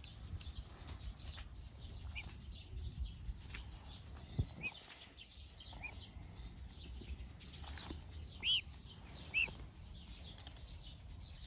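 Swan cygnet peeping: a few faint short peeps, then two louder ones about a second apart near the end, over soft rustling.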